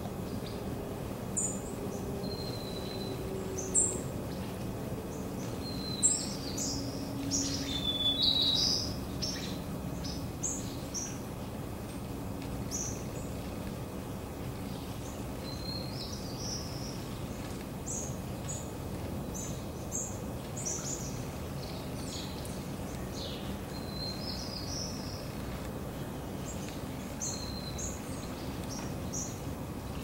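Small songbirds chirping: scattered short, high chirps and call notes, busiest about six to ten seconds in, over a steady low hum of distant traffic.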